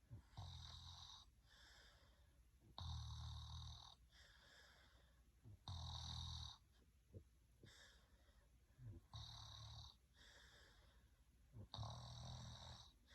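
A person snoring faintly and rhythmically, with a stronger low snore roughly every three seconds and softer breaths between.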